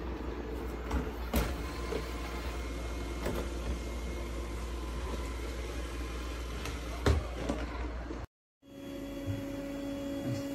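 Robot vacuum running: a steady motor-and-brush hum with a few light knocks. The sound cuts out for a moment about eight seconds in, then returns as a steadier hum with a clearer tone.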